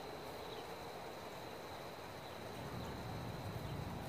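Outdoor background with an insect's steady, high-pitched drone over faint low noise.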